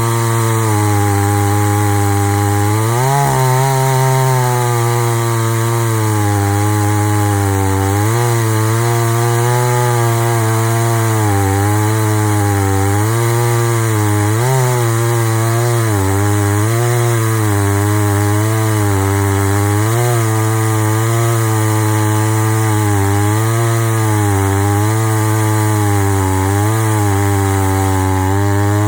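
Gas chainsaw on a chainsaw mill, ripping lengthwise through a log at high speed under load. Its pitch wavers up and down with the load, with a brief rise about three seconds in. The saw is running a 22-inch bar flipped over after it was found bent.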